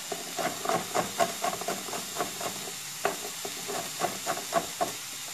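A chef's knife chopping garlic on a wooden cutting board: quick taps about four to five a second. Under them is the steady sizzle of shallots frying in a pan.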